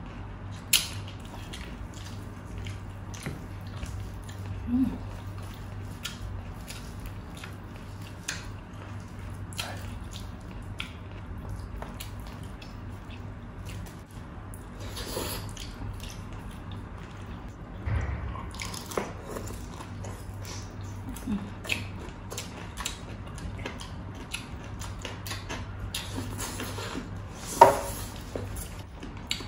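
Mouth and hand sounds of two people eating crispy deep-fried pork and rice by hand: scattered wet clicks and smacks of chewing, over a low steady hum. A few short sounds stand out, the loudest near the end.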